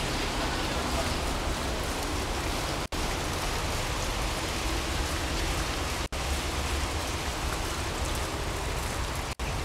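Steady rushing noise with a low rumble, broken by three brief dropouts to silence about three seconds apart.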